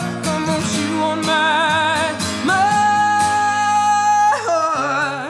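Male voice singing over strummed acoustic guitar in a live acoustic pop performance: a long held note in the middle, then the voice slides down about four seconds in while the guitar plays on.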